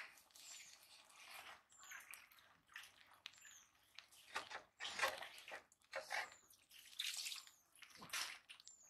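Food sizzling in a small wok over a wood fire, in irregular hissing surges as it is stirred. A bird gives a short falling chirp about once a second.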